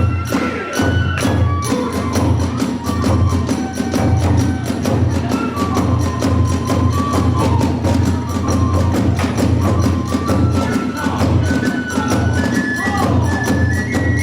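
Kagura music played live: drums beating under a rapid clatter of small hand cymbals, with a bamboo flute playing a melody of held notes.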